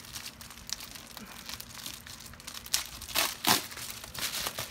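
A shipping bag crinkling and rustling as it is handled and opened, with a few louder crackles about three seconds in.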